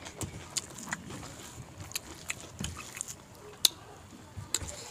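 Close-miked eating sounds: a person chewing a mouthful of rice and curry with wet mouth clicks and lip smacks, and fingers scooping rice from a plate. One sharp click stands out about three and a half seconds in.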